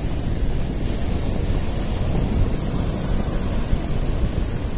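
Wind buffeting the microphone over the steady rush of breaking surf, heaviest in the low rumble.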